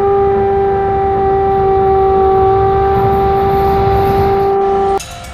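Train horn sounding one long steady blast over a low rumble, cutting off suddenly about five seconds in.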